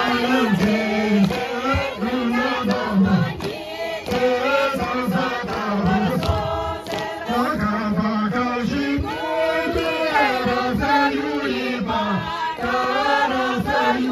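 A group of men and women singing a Tibetan gorshey circle-dance song in chant-like unison, with a male lead voice amplified through a microphone.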